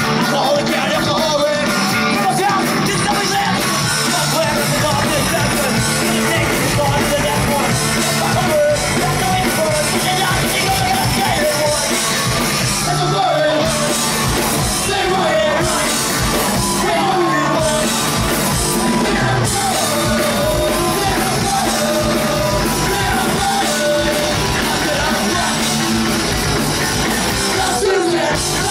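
Live rock band playing loud with electric guitars, bass guitar and drums, and a lead singer singing into the microphone, heard from the crowd.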